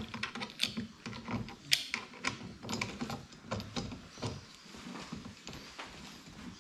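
Irregular small clicks and taps of hard plastic and metal parts as a sonar transducer is fitted to its pole-mount bracket and a small bolt and washer are put in. The clicks come two or three a second, then thin out after about four seconds.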